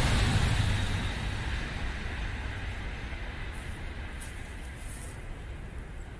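Train passing over a steel bridge, a broad rumble that fades steadily as it moves away, with a few faint high ticks in the second half.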